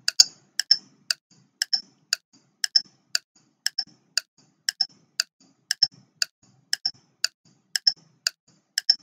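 Clock-ticking sound effect keeping time for a ten-second quiz countdown, with sharp, even ticks about two a second.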